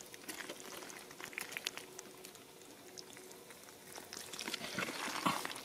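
Hands digging and squeezing through wet mud, making irregular wet squelches and small clicks that come thickest near the end.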